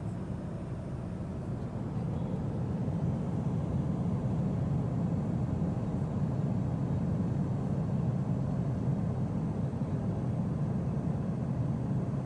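Steady low cabin noise of a Boeing 777-200ER in flight, the even drone of engines and airflow heard from inside the cabin. It gets a little louder about two seconds in.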